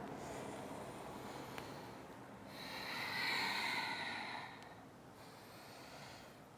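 A person breathing slowly and audibly during a yoga flow, with a longer, louder breath about halfway through.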